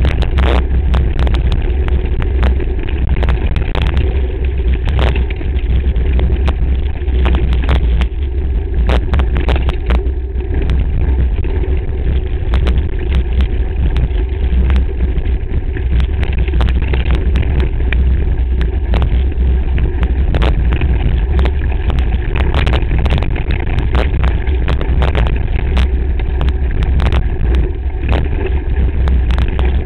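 Mountain bike descending a rocky trail at speed, heard through its handlebar-mounted camera: a loud, continuous low rumble of wind and frame vibration, with frequent sharp clicks and knocks as the bike rattles over the stones.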